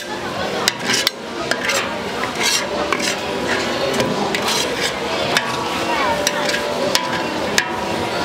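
A metal spatula scraping and clinking against a pan as pad thai noodles are stir-fried, with a sharp clink every second or so.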